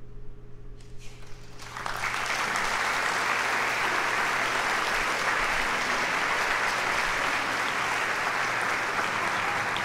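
Theatre audience applauding, breaking out about a second and a half in and then holding at a steady level.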